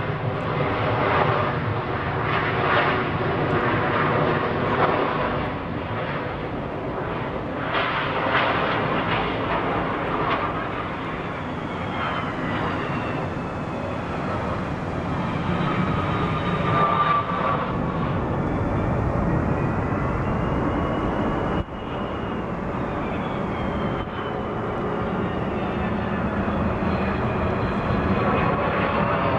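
Jet airliner engines running as aircraft taxi and roll along the runway: a steady roar with whining tones that slide down and up in pitch as the jets pass.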